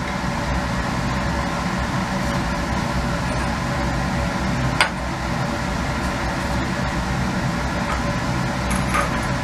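Steady hum and rush of laboratory ventilation running, with one light click about five seconds in.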